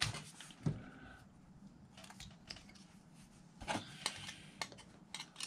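Hard plastic model-kit parts being handled: a sprue of plastic wheels and a plastic car body clicking and tapping against each other and the bench. Scattered light clicks, with a sharper one about a second in and a small cluster a little past the middle.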